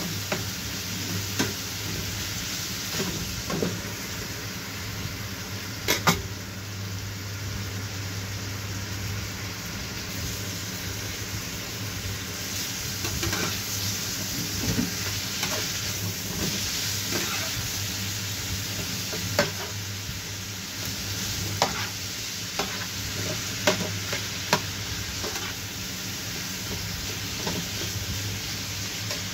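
Beef, sliced onion and bell peppers sizzling in a frying pan while a spatula stirs and scrapes them, with sharp clicks of the spatula against the pan, the loudest about six seconds in. A steady low hum runs underneath.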